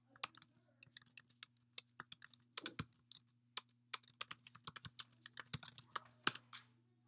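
Typing on a computer keyboard: quick, irregular keystrokes entering an email address and then a password into a login form, with one louder keystroke just before the typing stops near the end. A faint steady low hum runs underneath.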